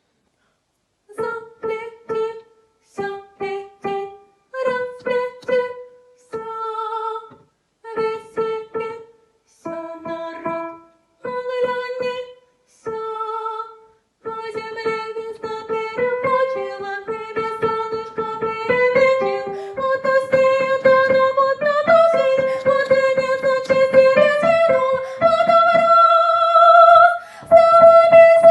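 Music starts about a second in: a melody in short phrases with brief pauses between them. From about halfway it plays without breaks and grows louder, ending on long held notes.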